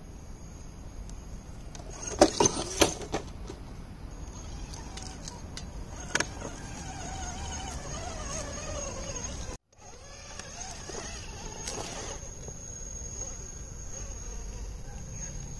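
1/10 scale RC rock crawler driving over boulders: its small electric motor and gears whine, rising and falling in pitch with the throttle, over a steady high-pitched whine. A few sharp knocks stand out about two seconds in, with another near six seconds.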